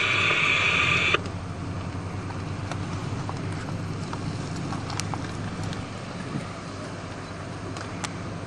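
Static hiss from a scanner radio for about the first second, cutting off suddenly. Then a steady low rumble of idling vehicles and road traffic, with a couple of faint clicks.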